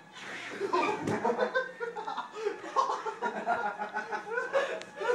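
Men laughing hard, with a single sharp knock about a second in.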